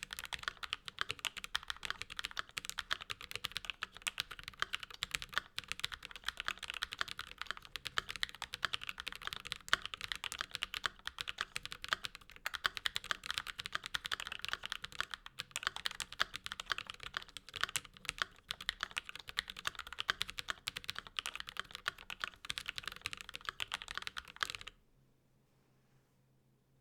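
Fast, continuous typing on a ZTBoards After 65% mechanical keyboard with lubed Konpeitou switches, an aluminum half plate and GMK Taro keycaps: a dense stream of keystroke clacks. The typing stops abruptly shortly before the end.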